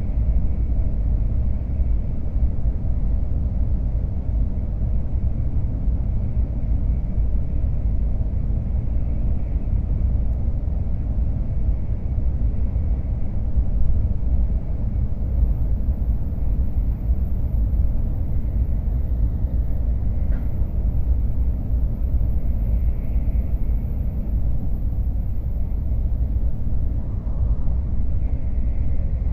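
Steady low rumble of an N700S Tokaido Shinkansen running at speed, heard from inside the passenger cabin.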